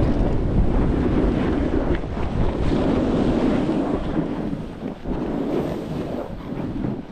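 Wind buffeting the microphone of a moving snowboarder, mixed with the snowboard sliding and scraping over snow. The rush surges and eases, dipping briefly about five seconds in.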